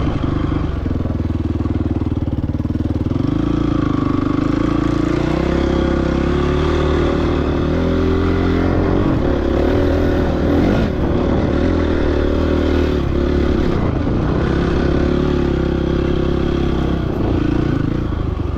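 Motorcycle engine running under way, its pitch rising and falling with the throttle, with some clatter from the bike.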